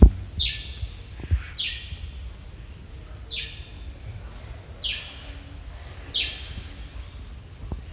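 A bird calling over and over: five short high calls, each falling in pitch, about one every second and a half, over a low rumble, with a sharp knock right at the start and another just after a second in.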